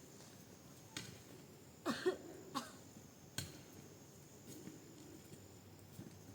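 A person coughing, three short coughs close together about two seconds in, with a few sharp clicks or knocks around them.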